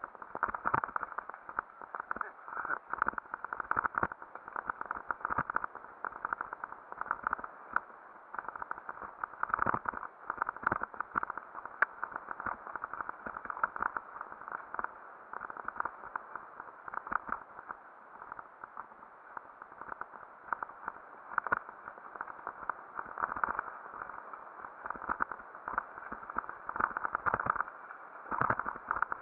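Mountain bike rattling down a rough dirt singletrack, heard muffled through a helmet camera: a steady rushing noise with many irregular clicks and knocks from the bumps.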